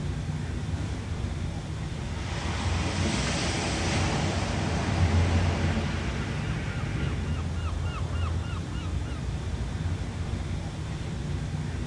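Ocean waves: a wave breaks and washes in about two seconds in, swells for a few seconds and then recedes, over a steady low rumble of surf. Midway there is a quick run of short high chirps.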